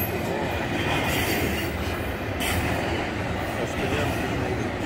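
Union Pacific double-stack container train of loaded well cars passing close by, a steady rumble of steel wheels on rail.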